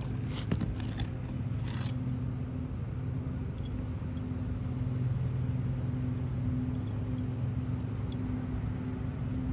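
A steady low machine hum, like a motor running nearby. A few light clicks and taps come in the first two seconds, with fainter ticks later.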